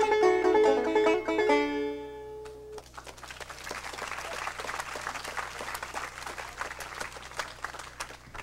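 A banjo tune comes to its end about two seconds in, with the last note ringing out briefly. Audience applause follows and slowly dies down.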